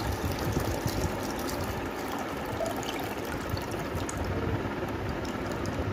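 Tamarind water pouring in a steady stream from a plastic container into a steel bowl of tomatoes.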